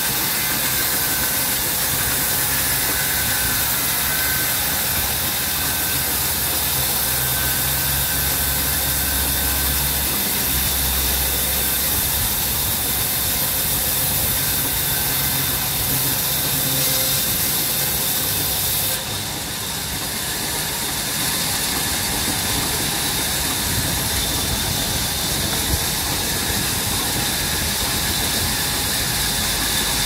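A motor-driven vertical band saw runs steadily, its blade ripping lengthwise through a jackfruit-wood plank with a loud, continuous hiss over the motor's hum. The sound drops a little about nineteen seconds in.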